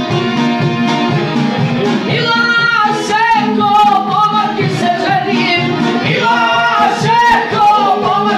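Live folk music played at the table on violin, acoustic guitar and a long-necked plucked string instrument. About two seconds in, a singing voice with a wavering vibrato joins the playing.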